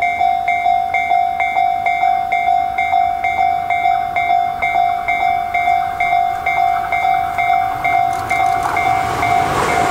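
Japanese railway level-crossing warning bell ringing steadily, about two strokes a second. Near the end the running noise of an approaching Tobu 70090-series electric train swells beneath it.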